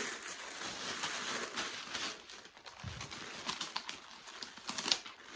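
Tissue paper rustling and crinkling as hands fold and smooth it around a package: a steady rustle for about two seconds, then scattered crackles.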